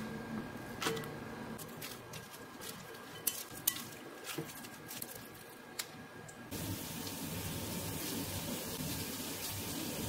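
Julienned vegetables being mixed into pancake batter in a glass bowl, with scattered clicks and taps against the glass. About six and a half seconds in, a steady sizzle of vegetable pancake batter frying in oil in a pan takes over.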